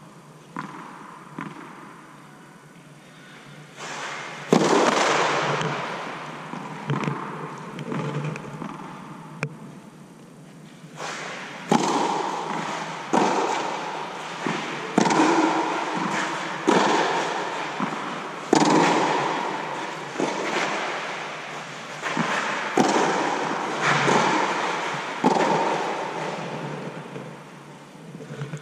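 Tennis ball struck back and forth with racquets in a rally, with ball bounces on the clay between the hits. Each sharp crack rings on in the echo of the fabric air dome. The strikes come about once a second for most of the second half, after a quieter stretch near the start.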